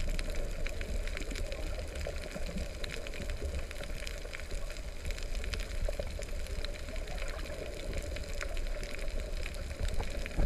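Underwater ambience picked up by a submerged camera: a steady, muffled low rumble of water with scattered faint clicks and crackles.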